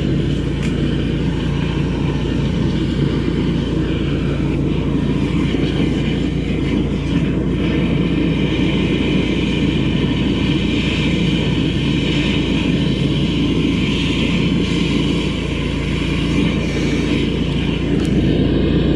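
High-pressure drain jetter's engine and pump running steadily at working speed while its jet hose is fed into the drain line.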